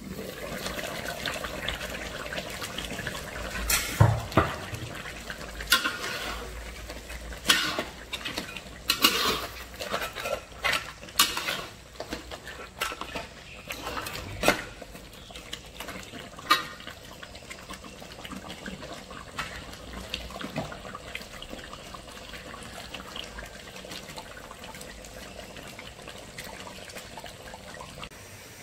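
Crab rendang simmering in a wok, its thick sauce bubbling steadily after the aluminium lid is lifted off at the start. From about four seconds in, a spatula knocks and scrapes against the wok for some thirteen seconds as the crab pieces are stirred, and then the simmering carries on alone.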